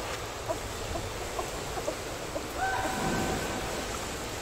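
Light water splashing and lapping in an indoor pool as a child paddles along on a foam kickboard, over a steady hall ambience. A short steady tone, just under a second long, sounds about two and a half seconds in.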